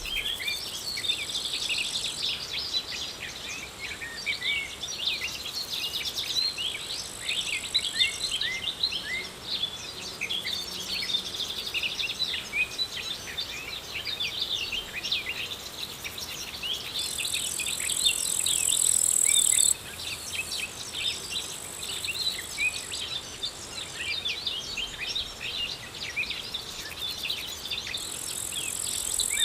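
Summer field ambience: many small birds chirping continuously in overlapping calls, with high-pitched insect trills from crickets or grasshoppers that sound in stretches of a few seconds and then stop, one stretch cutting off suddenly about two-thirds of the way through.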